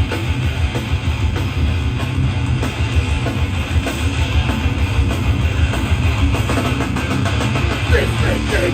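A hardcore band playing loud live: distorted electric guitar, bass and fast pounding drums, with no vocals.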